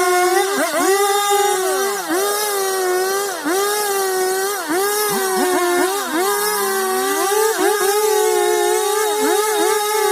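Chainsaw engine running at high speed, its pitch dipping again and again as it bogs under load, with one deeper sag lasting about a second near the middle, as the chain cuts into wood.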